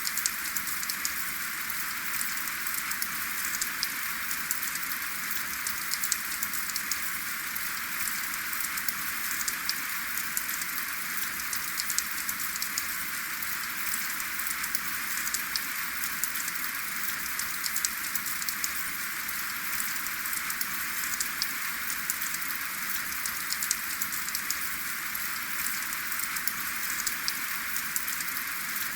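Steady rain falling, with many individual drops ticking through an even hiss, and no thunder.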